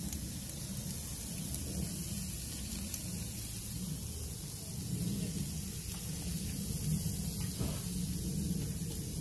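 Steady hiss and low rumble of a hot grill, with shrimp and meat skewers cooking on its grates.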